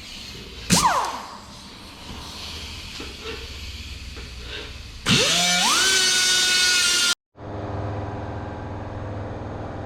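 Angle grinder spinning up with a rising whine, then running steady and loud as it cuts sheet steel; the sound cuts off suddenly. A brief sharp sound with a quick pitch glide comes under a second in, and a steady low hum follows the cut-off.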